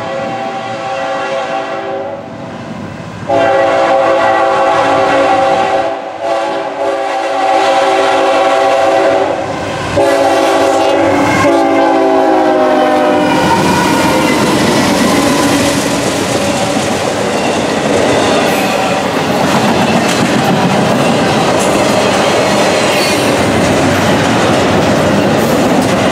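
Norfolk Southern diesel locomotive's air horn sounding a multi-note chord in long blasts for about the first thirteen seconds, then the locomotives and double-stacked intermodal cars rolling past close by with steady wheel-on-rail clatter.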